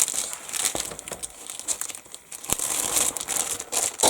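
Plastic bag crinkling and rustling as a model kit's sprue is handled, a dense run of irregular crackles.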